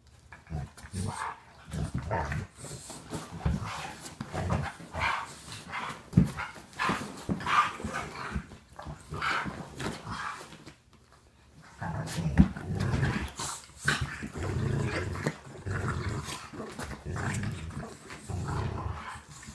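A French bulldog and a large black dog play-wrestling, with play growls and grunts coming in irregular short bursts and a brief lull about halfway through.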